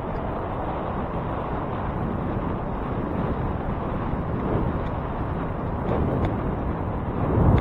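Steady wind and road rumble heard while riding a bicycle, swelling briefly near the end.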